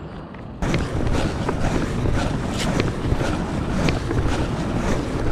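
Wind buffeting the microphone: a loud, steady low rumble with scattered small ticks and rustles, starting abruptly about half a second in.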